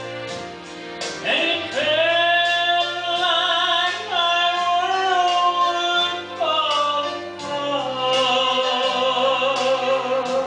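Southern gospel vocal group singing over instrumental accompaniment, holding long notes with vibrato above a bass line and a steady beat.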